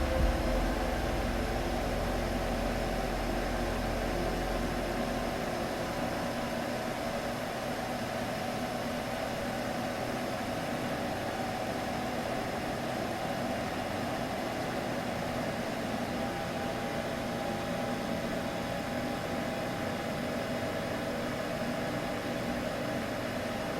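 A woman's soothing sleep humming blended into a steady, unbroken drone over a soft hiss, made to lull a baby to sleep. A low rumble beneath it fades out about five seconds in.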